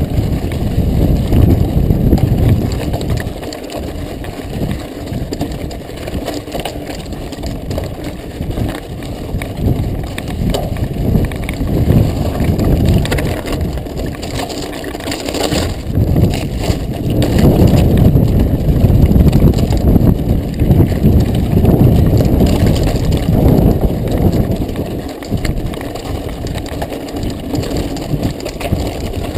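Mountain bike rattling and crunching over a loose volcanic gravel trail, picked up by the rider's action camera along with heavy wind buffeting on its microphone. The noise swells and dips with the ride, louder in the middle stretch, with a sharp knock about halfway through.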